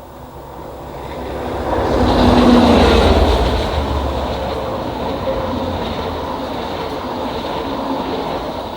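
A diesel-hauled passenger train passing close by, led by the English Electric-engined Class 50 50008 and the Class 67 67028. The locomotives' low engine rumble builds to a peak about two to three seconds in, then comes a steady run of coach wheels on the rails, fading near the end.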